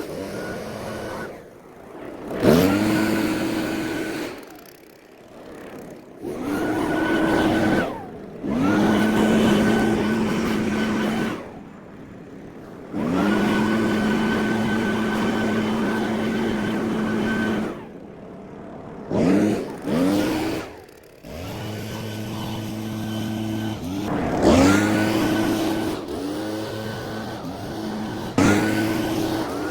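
Gas lawn mower engine running, heard in several separate stretches with abrupt breaks between them; at the start of each stretch the engine note drops sharply in pitch, then holds steady.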